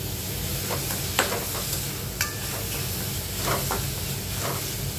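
Onions, green chilli and ginger-garlic paste sizzling in oil in a steel kadai as chopped tomato is tipped in. A metal ladle stirs and scrapes the pan, with a few short clinks, the clearest about a second and two seconds in.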